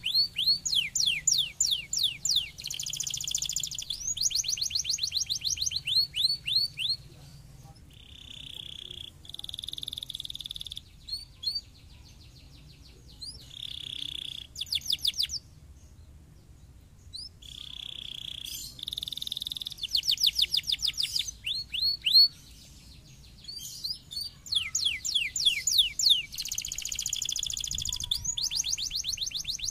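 Domestic canary singing: fast trills of rapidly repeated falling notes alternating with buzzy, even rolls, with a short pause about halfway through.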